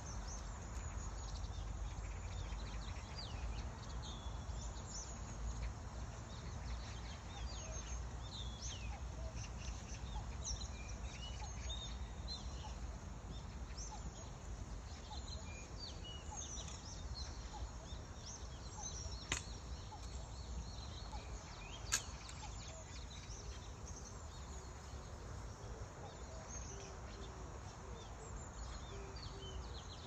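Small birds chirping and twittering in short high notes, over a steady low rumble. Near the end, faint low notes repeat evenly: a cuckoo calling. Two sharp clicks, about two and a half seconds apart, fall in the middle.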